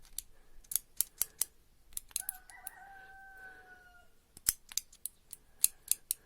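Irregular sharp metal clicks as the Bosch common rail injector's multiplier piston is worked back and forth in its bore, to check that it slides freely. About two seconds in, a rooster crows once in the background for about two seconds, its pitch falling slightly.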